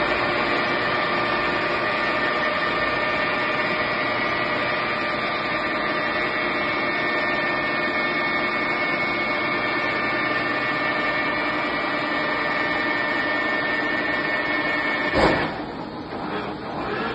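Drive of a 1980 Wotan horizontal boring mill running with a steady, multi-toned whine. About 15 seconds in it ends with a sharp clunk.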